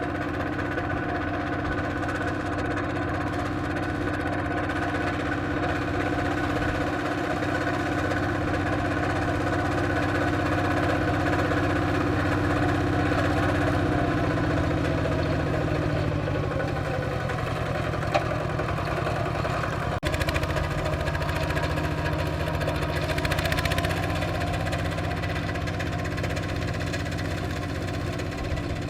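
Kubota RT120 walking tractor's single-cylinder diesel engine running steadily while ploughing. Its pitch shifts about halfway through, with a couple of sharp clicks a few seconds later.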